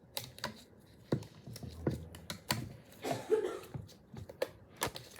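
Irregular small clicks and taps from handling dental dam instruments and materials, with a brief rustle about three seconds in.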